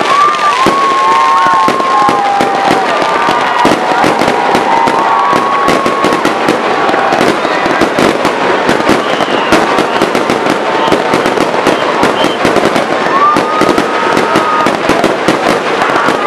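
A crowd applauding and cheering, with dense claps close to the microphone. Whoops and shouted cheers come through in the first few seconds and again near the end.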